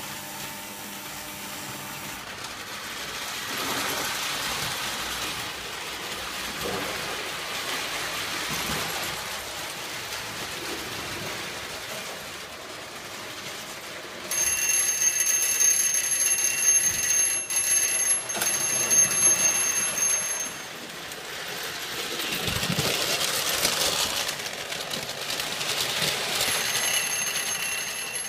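Lionel O gauge toy trains running on metal track, a rolling rattle that swells and fades as they pass. About fourteen seconds in, an electric bell starts ringing continuously for about six seconds, louder than the trains, and rings again more faintly near the end.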